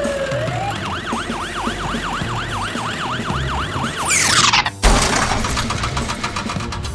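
Cartoon-style siren sound effect: a fast wavering tone, about four wobbles a second, for several seconds. It ends in a rising whoosh and a thump about five seconds in, followed by a rapid rattling noise.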